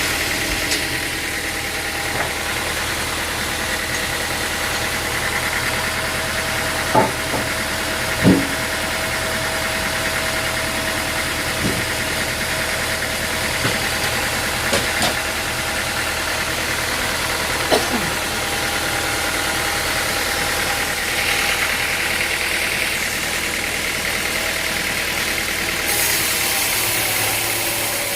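Machinery running steadily, with a few sharp knocks scattered through it and a brief hiss near the end.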